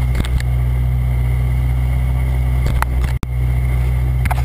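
Rallycross car engine idling steadily with a deep, even drone. The sound cuts out for an instant about three seconds in.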